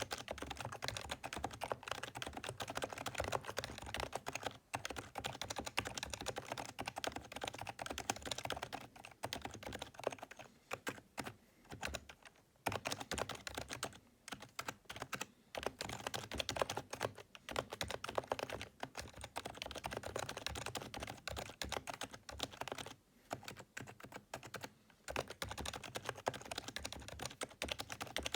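Fast, continuous typing on a PFU HHKB Professional 2 Type-S keyboard, its Topre electrostatic capacitive switches giving soft, dampened keystrokes, with a few short pauses.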